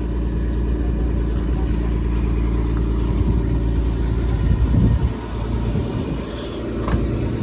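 A car engine idling steadily, a low continuous rumble with an even hum; the deepest part of the rumble drops off about five seconds in.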